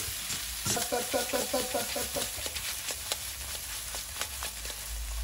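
Prawns and masala stir-frying in a wok: a soft sizzle with the spatula clicking and scraping against the pan. About a second in, a short run of pitched notes from another source is heard briefly.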